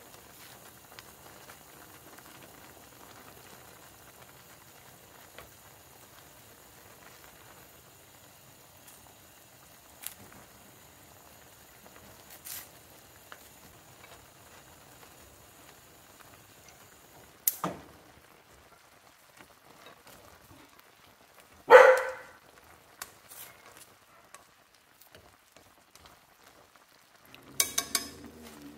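Ramen noodles simmering in broth in a glass pan, a faint steady bubbling hiss, while chopsticks stir the noodles and knock a few times against the glass. The loudest is a short, sharp sound about 22 seconds in, and a quick run of clicks comes near the end.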